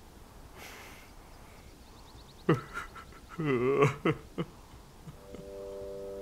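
An old man crying: a sudden sob, then a quavering wail about a second later and a couple of short catches of breath. Near the end, steady held notes of background music begin.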